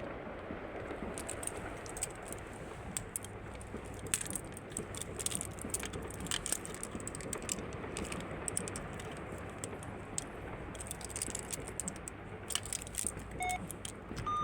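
1977 MLZ passenger lift car travelling, a steady running noise with frequent short clicks, rattles and squeaks from the car as it moves.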